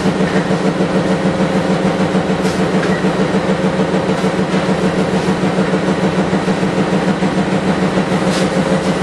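Loud machine running steadily, with a strong low hum and a fast, even pulse.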